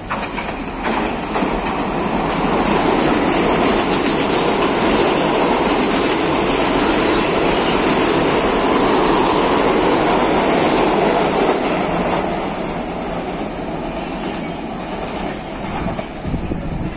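Electric multiple-unit commuter train passing through a station close by: a loud rumble with wheel clatter on the rails, building about a second in and easing off after about twelve seconds.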